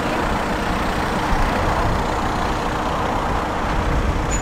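Steady low rumble of motor vehicles running, with a faint steady hum under it.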